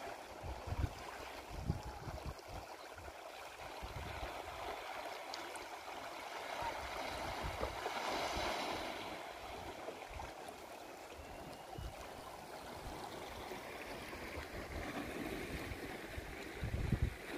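Sea water washing and gurgling over a rocky shoreline of black stones, with a louder surge of foaming water about eight seconds in.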